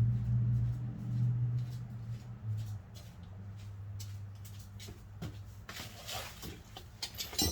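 A steady low hum, loud at first and dying down after a few seconds, with scattered light clicks and clinks of metal tools and brake parts being handled, busier near the end.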